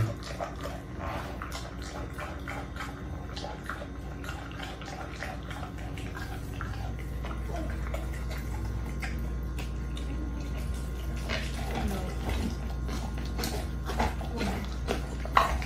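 Dog shifting and moving about on a vinyl floor over a raw chicken: scattered small clicks and soft mouth noises over a steady low hum, with one sharper click near the end.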